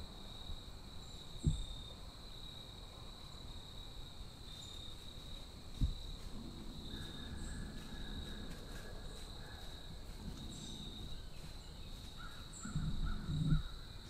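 Whitetail deer stepping through dry fallen leaves, with rustling that grows louder near the end, over a steady high insect drone. There are a couple of soft thumps in the first half.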